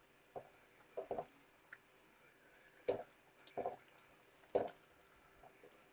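Thick soy-sauce chicken gravy simmering in the pan, with about six soft, irregularly spaced bubble pops.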